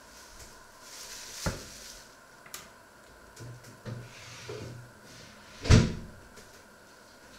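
Knocks and bumps of household handling: a sharp knock about one and a half seconds in, softer bumps after it, and a louder thud about three-quarters of the way through.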